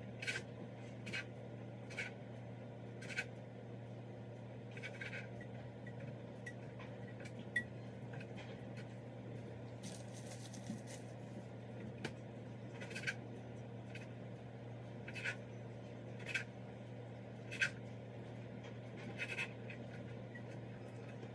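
Kitchen knife cutting sausages on a cutting board: irregular sharp knocks of the blade hitting the board, about one every second or two, with a brief scraping stretch in the middle, over a steady low hum.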